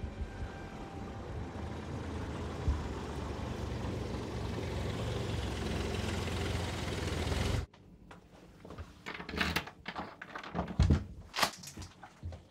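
Car driving: a steady road and engine rumble that cuts off sharply about seven and a half seconds in. Then a run of clicks and knocks as a door handle and latch are worked.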